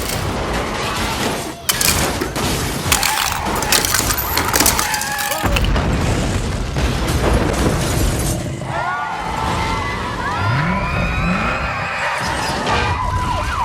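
Earthquake destruction sound effects: a run of crashes and shattering over the first five seconds or so, then a heavy low rumble with a speeding car, and high wavering squeals near the end.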